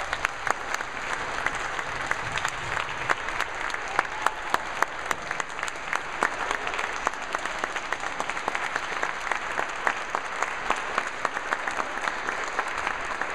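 Congregation applauding, a steady patter of many hands with some loud, sharp individual claps close by.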